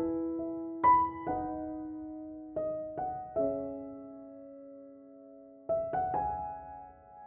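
Background music: slow, gentle piano, single notes and chords struck a few at a time and left to fade, with a lull in the middle.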